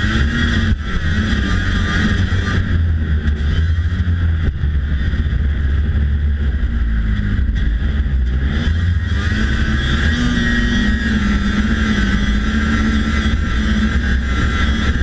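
1992 Polaris Indy Lite 340 snowmobile's two-stroke engine running steadily while riding, its pitch rising and falling a little with the throttle.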